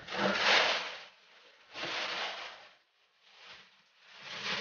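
Plastic wrapping and packaging rustling and crinkling in four separate bursts as a television is lifted out of its cardboard box.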